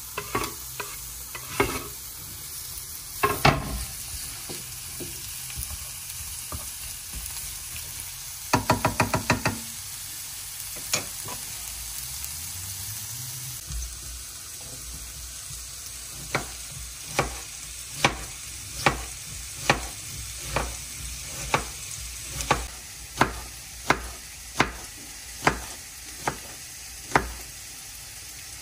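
Sliced onions sizzling in oil in a frying pan, stirred and scraped with a wooden spatula, with the frying hiss running underneath. About halfway through, a knife slicing a tomato on a wooden cutting board knocks against the board in a steady run of sharp taps, a little more than one a second, with a brief fast rattle of knocks earlier on.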